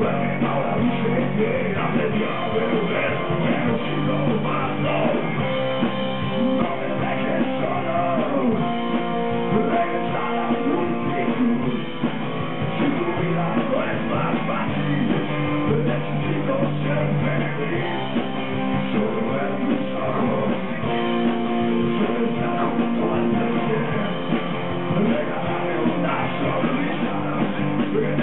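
A rock band playing live: electric guitar, bass guitar, keyboard and drums, heard through the PA.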